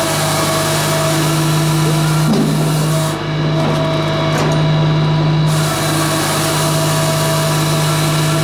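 Japa 355 firewood processor running under power, a steady machine drone with a low hum, dipping briefly about two seconds in and again near six seconds.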